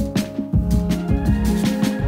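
Background music with a beat: regular drum hits over a low bass line and held chords.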